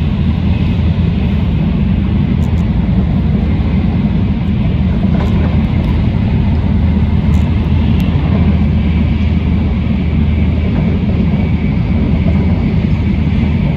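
Steady low rumble of a Shinkansen bullet train running at speed, heard inside the passenger cabin.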